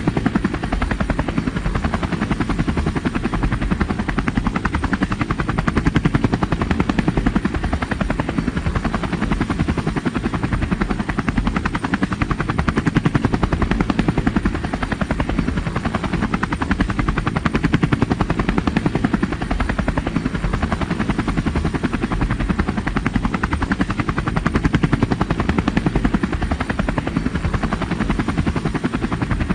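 A steady, rapidly pulsing mechanical noise, unbroken throughout, heaviest in the low end.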